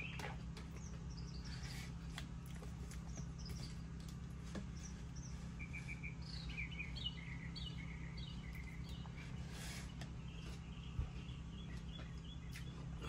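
Small birds chirping: quick runs of short, high chirps, busiest in the middle, over a steady low hum.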